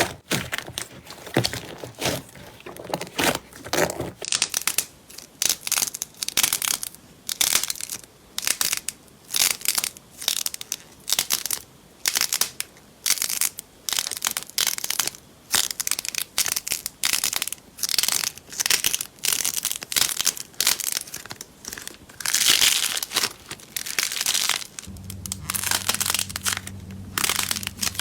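Crunchy slime being squeezed and pressed by hand, crackling and crunching in repeated squishes about one to two a second. A steady low hum joins in near the end.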